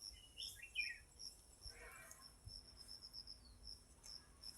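Insects chirping in a steady, fast, high-pitched pulsing trill, faint in the forest quiet. Near the start a bird gives a short call of a few stepped, falling notes.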